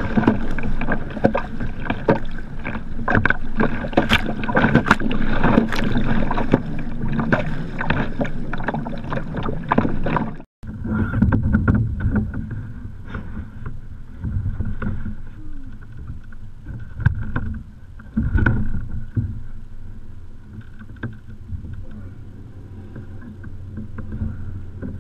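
Kayak paddle strokes splashing steadily, with water rushing along the hull as the kayak is paddled fast through chop. About ten seconds in it cuts abruptly to quieter water lapping at the hull, with a few scattered knocks and splashes.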